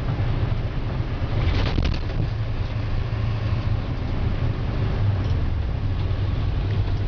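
International 4700 medium-duty wrecker driving down the road, its engine and road noise making a steady low rumble. A brief higher-pitched sound comes about a second and a half in.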